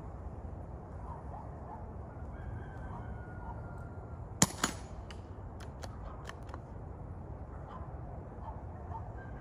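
A single quiet shot from a small-calibre rifle or BB gun about four and a half seconds in: a sharp crack followed a quarter second later by a second, softer crack. The shot is put at about 70–75 decibels.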